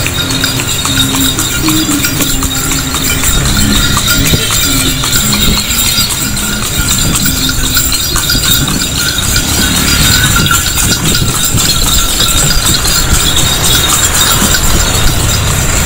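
Horse's hooves clip-clopping on the road as it pulls a carriage at a steady pace, over steady background noise.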